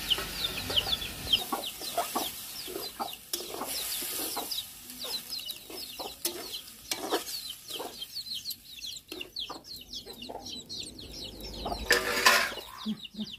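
Chicks peeping continuously in short, quick downward cheeps, with scattered knocks of a metal ladle stirring in an iron wok. A louder burst of noise comes near the end.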